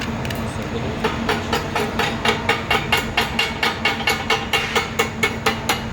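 A steady hum starts, and about a second in a fast, even knocking begins on top of it, about four sharp strikes a second.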